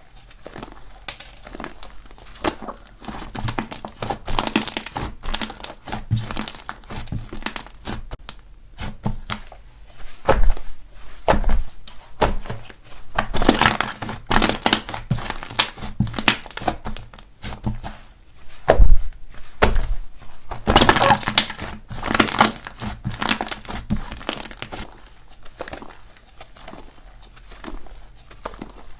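Slime being squished and stretched by hand, giving a dense run of crackling, popping clicks, with louder spells of crackle about halfway through and again a little later.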